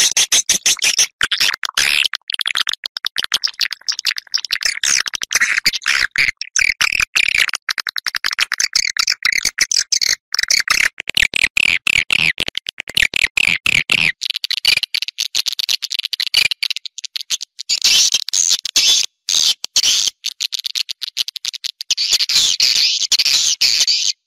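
Edible-nest swiftlets calling in a dense chattering chorus of rapid high chirps and clicks, with no pause, getting stronger in the upper range near the end. This is an outdoor swiftlet lure call, played to draw swiftlets to a nesting house.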